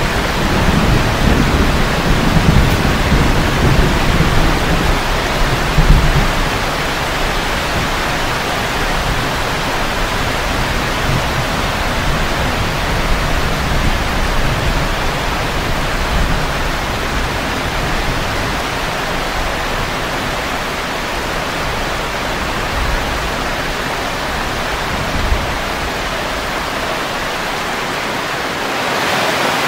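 Steady heavy rain, with a low rumble of thunder through the first several seconds that fades away; the rain turns a little louder and hissier near the end.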